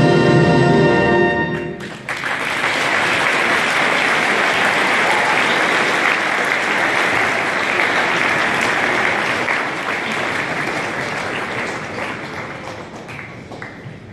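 A high school concert band of brass, woodwinds and percussion holds a final chord that cuts off sharply just under two seconds in. A large audience then applauds, the clapping thinning out toward the end.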